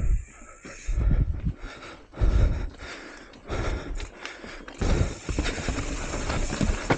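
Mountain bike riding fast down a rooty, rocky dirt trail: the bike rattling and clattering over roots and loose rocks, with several heavy low thumps as it drops over them.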